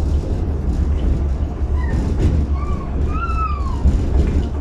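Tatra T6B5 tram running along the track: a steady low rumble of wheels and running gear. About two seconds in come a few brief high tones that rise and fall.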